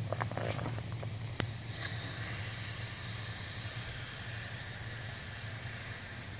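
Breath blown by mouth into the valve of an inflatable vinyl paddling pool: a long steady rush of air from about two seconds in, after a few clicks of the vinyl being handled. A steady low hum runs underneath.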